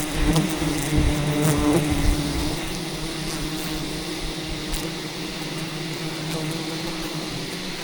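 Wild bees buzzing in a swarm: a steady droning hum, louder for the first two seconds and then even.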